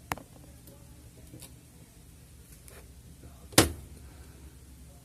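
Small clicks and handling noises from soldering work at a bench, with one sharp knock about three and a half seconds in, over a faint steady hum.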